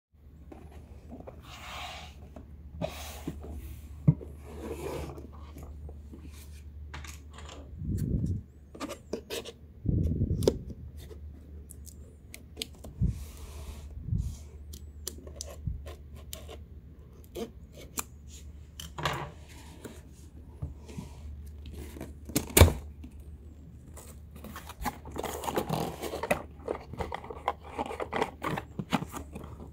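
A laptop's cardboard packaging being handled and opened: scattered scrapes, rubs, taps and tearing of cardboard and seal stickers, with one sharp knock about three-quarters of the way through. A steady low hum runs underneath.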